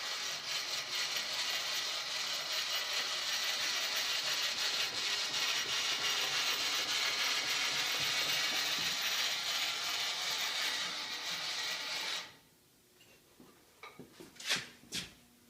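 Milling machine cutting into a bulldozer cylinder head's exhaust valve seat, a steady rapid metal-on-metal chatter that stops about twelve seconds in. A few light metallic clicks follow near the end.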